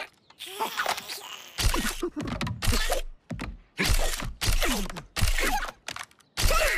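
Cartoon raccoons squealing and chattering in a string of short outbursts with pauses between, mixed with thumps and scuffling as they tumble about.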